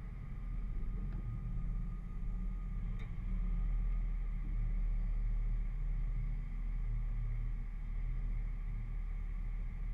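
Low, steady rumble of a Jeep's engine running slowly, with no revving.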